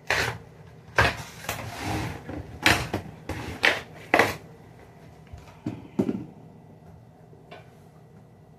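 Groceries and plastic fridge parts being handled while a refrigerator is stocked: a string of knocks and clunks with a short scraping slide, thinning out after about six seconds.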